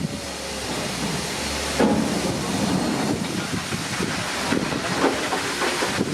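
Steam train passing, with steam hissing and wheels clicking over rail joints; it gets suddenly louder about two seconds in.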